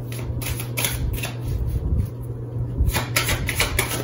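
Tarot cards being shuffled and handled: a run of irregular crisp flicks and snaps, with a quick cluster about three seconds in, over a steady low hum.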